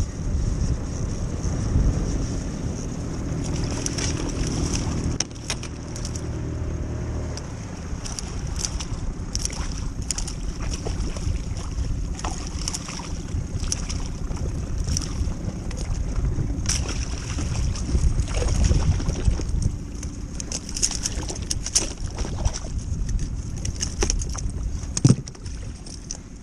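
Wind on the microphone and water slapping against the hull of a small inflatable boat, with a low hum for the first several seconds. Frequent short clicks and knocks from fishing tackle being handled run through it.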